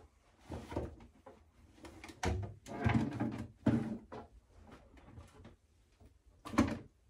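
Items being shifted and knocked about in a bathroom cabinet: a run of clunks and rustles, busiest from about two to four seconds in, with one sharper knock near the end.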